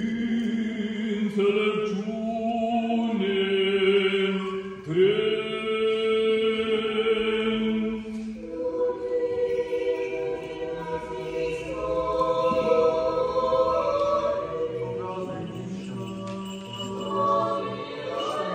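Orthodox church choir singing a cappella in long held chords that shift every few seconds, with a new phrase entering about five seconds in.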